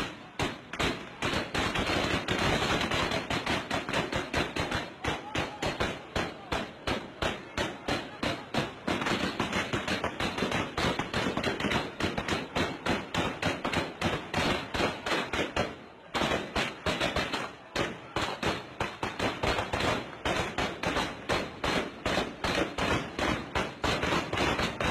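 Heavy, sustained gunfire, several shots a second with barely a break and a short lull about two-thirds of the way through: a house being shot up in a tribal revenge attack (a 'dakka').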